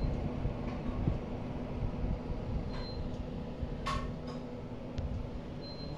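Bajaj electric fan heater running with both heat settings on: a steady whir of its blower fan with a faint hum, and a single light click about four seconds in.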